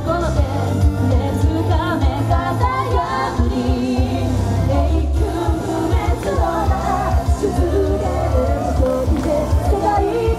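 Japanese idol pop song: a sung melody over music with a heavy, pulsing bass beat.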